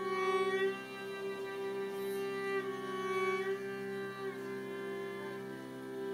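Violin and cello playing a slow raga over a steady drone: long held violin notes, some with vibrato, that step to a new pitch about three times.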